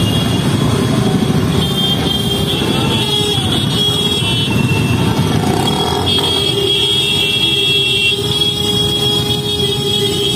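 Many motorcycles and scooters running together at crawling speed, their engines blending into one dense, steady mix, with a steady high tone held over them through most of it.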